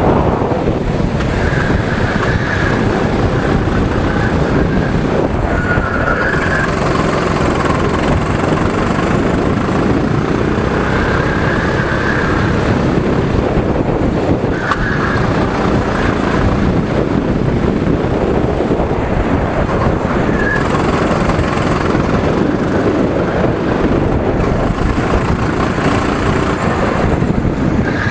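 Go-kart engines running at speed on a kart track, heard from onboard over steady wind rush on the microphone; loud and continuous.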